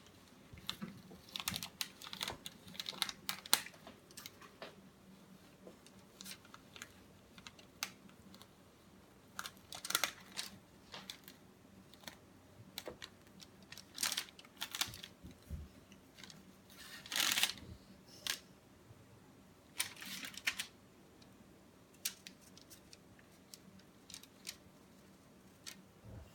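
Irregular light clicks and taps of small objects being handled, with a brief scrape about two-thirds of the way through and a faint steady hum underneath.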